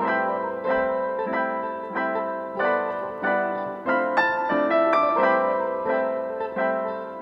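Background piano music: a melody of struck notes that ring and fade, about two a second.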